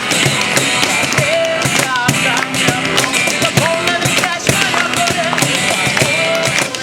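A live band playing a rock song: drums keep a steady beat under a gliding melody line.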